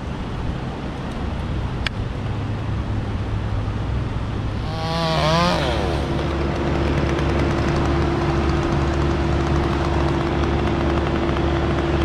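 Chainsaw revving up about five seconds in and then held at a steady high speed, over a steady low engine drone.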